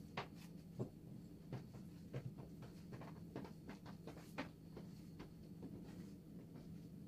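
Faint, irregular taps and clicks of hands and utensils handling börek dough, over a steady low hum.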